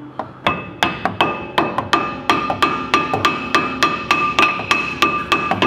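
A hammer striking a stuck brake rotor over and over, about three blows a second. The metal disc rings after each blow as he knocks it free of the wheel hub, where it has seized tight.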